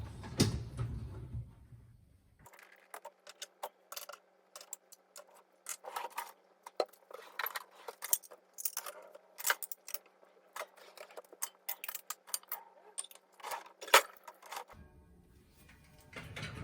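Small hard objects clinking and rattling as things are handled and put away, a dense, irregular run of quick clicks and taps.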